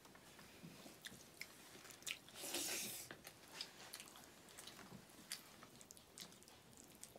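Faint close-up chewing and biting of people eating buffalo meat by hand, with many small mouth and finger clicks and one louder swish about two and a half seconds in.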